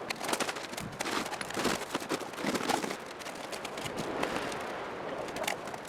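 Irregular clatter and rustling of camp gear being handled and packed during cleanup, with scattered clicks and knocks.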